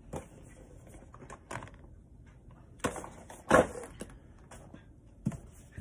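A few scattered knocks and clicks of GoPro accessory packages being handled and set down, the loudest about three and a half seconds in.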